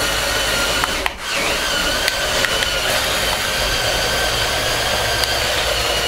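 Electric drive motors and plastic gear trains of a brick-built remote-control bulldozer whining steadily as it drives on its tracks. There is a brief break about a second in, after which the whine dips in pitch and comes back up.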